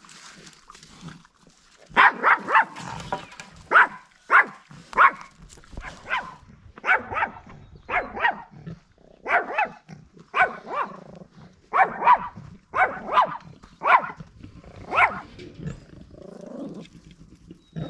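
A dog barking repeatedly in quick clusters, about twenty sharp barks, starting about two seconds in and stopping a few seconds before the end.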